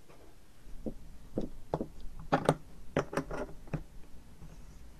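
Metal barbed hose fitting being screwed into a PVC pipe with an adjustable wrench: about ten irregular clicks and knocks, which stop about a second before the end.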